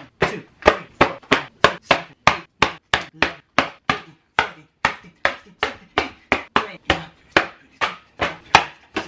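Bare hand repeatedly slapping a sheet of watercolor-painted paper: a fast, even run of sharp slaps, about four a second.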